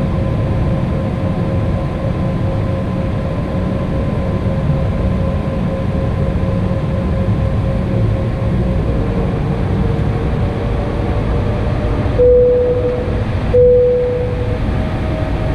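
Inside the cabin of an Embraer E190, its GE CF34 turbofan engines run at low power with a steady rumble and a steady whine. Near the end, two short, loud single-pitch tones sound about a second and a half apart, and after them the engine whine edges higher.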